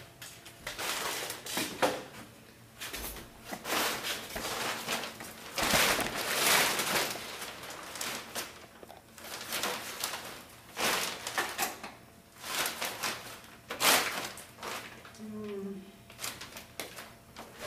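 A painted canvas being cut apart, in a series of irregular rasping strokes of about half a second to a second each.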